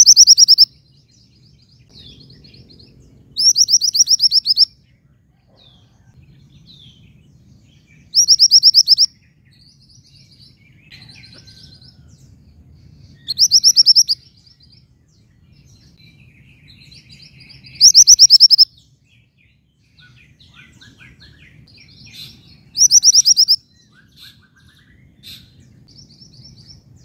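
Female mantenan gunung songbird calling to a male: a loud, fast, high trill about a second long, repeated six times at intervals of four to five seconds, with faint softer chirps in between.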